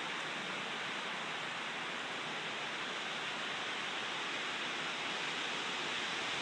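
Strong wind rushing through trees, a steady even hiss with no gusting breaks.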